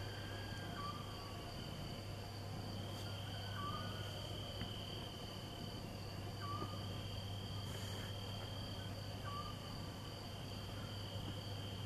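Steady high-pitched insect trilling over a low steady hum, with a short falling chirp every two to three seconds.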